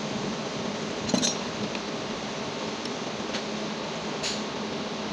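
A few light metallic clinks of a bolt and spanner against the rusty iron housing of a donkey water pump being put back together, the loudest about a second in, over a steady background hum.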